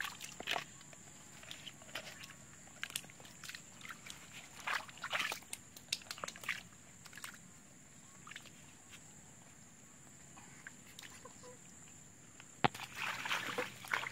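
Bare feet sloshing and squelching through shallow muddy water in scattered bursts, quieter for a few seconds midway, then busier splashing after a sharp click near the end. A thin steady high tone sits under it throughout.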